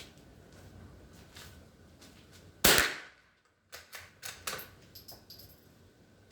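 A single .22 LR shot from a Marlin Glenfield rifle about two and a half seconds in, sharp and loud. It is followed a second later by several lighter clicks and knocks.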